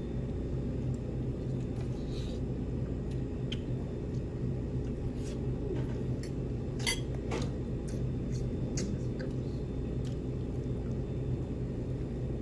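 Steady low hum of a restaurant room with scattered light clicks and taps of dishes and cutlery at the table, the sharpest about seven seconds in.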